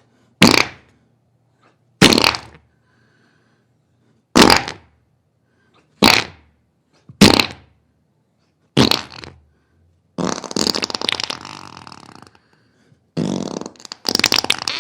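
A string of farts: six short, separate blasts spaced one to two and a half seconds apart, then two longer, drawn-out, sputtering ones near the end.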